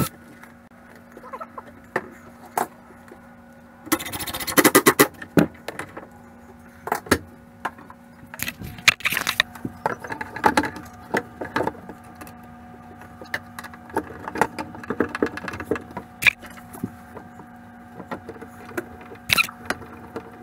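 Scattered clicks, knocks and small rattles of hands and tools working on a wooden cabinet filler strip, with a quick run of rattling knocks about four seconds in. A faint steady hum runs underneath.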